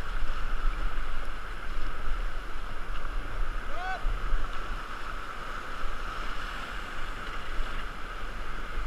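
Whitewater rapids rushing steadily around an inflatable raft, with a deep low rumble underneath.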